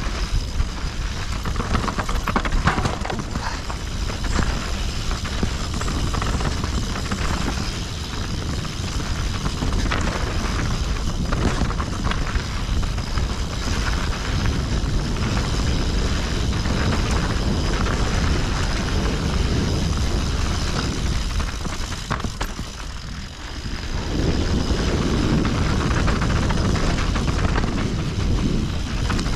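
Mountain bike descending a rough technical trail: wind rushing over the camera microphone makes a steady low rumble, with rattles and knocks from the bike over rocks and roots. The rumble eases briefly near the middle, then comes back louder.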